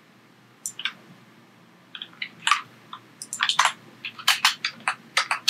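Computer keyboard and mouse clicks: a few scattered clicks, then a quick irregular run of keystrokes in the second half, as code is copied and pasted.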